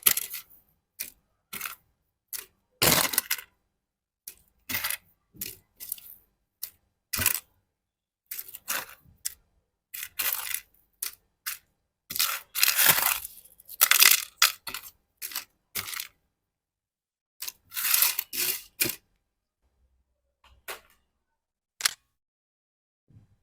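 Crisp snack chips handled in irregular bursts of crackling and light clattering, about two dozen short bursts with brief pauses between them, thinning out near the end.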